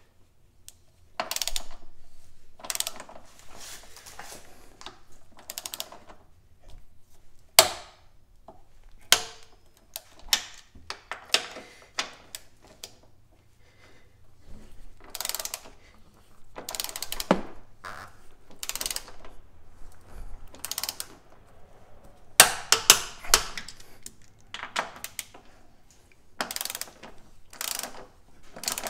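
Socket wrench ratchet clicking in short runs as the strut tower bar's nuts on the strut tops are tightened down to torque, with a few sharper single clicks between the runs.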